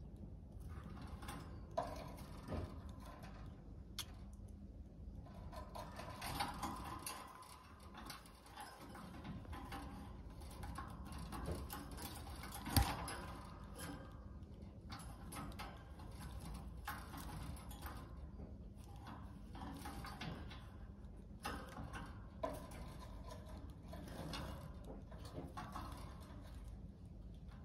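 A budgerigar moving about its wire cage: scattered light clicks and taps of beak and feet on the metal bars and the plastic water dispenser, the loudest about halfway through, over a faint steady low hum.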